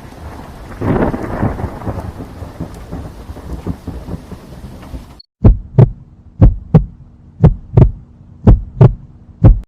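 Thunder sound effect: a rumble over a hiss of rain, swelling about a second in, then cut off after about five seconds. A heartbeat sound effect follows: pairs of deep thumps about once a second over a faint steady hum.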